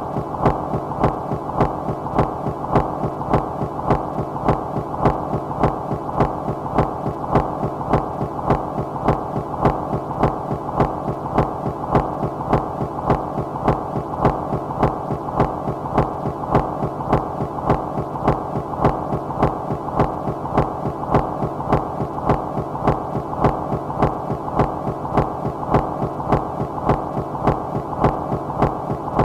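Minimal micro-industrial rhythmic noise music: a dense, steady noise drone that pulses regularly about twice a second, with faint clicks on the beats and a thin steady tone above. It repeats hypnotically without change.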